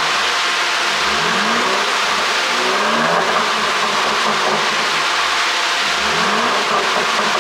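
Mercedes-Benz E400 Cabriolet's twin-turbo V6 running with an ECU pop-and-crackle tune, revved in three short blips whose pitch rises each time over a steady engine and exhaust drone.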